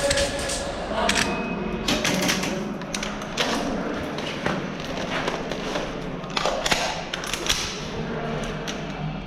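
Airsoft guns firing during a game: scattered sharp clacks and thuds, some in quick runs of several shots.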